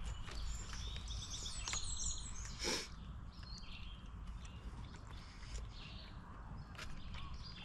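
Birds chirping and trilling, short high notes coming in runs, over a steady low rumble, with one brief scuffing sound a little under three seconds in.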